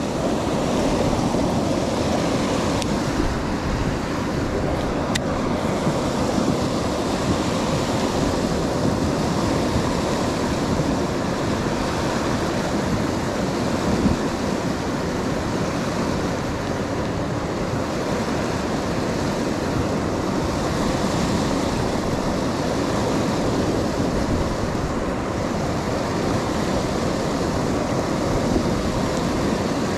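Water from a dam spillway rushing steadily over a low weir and churning into foam below it.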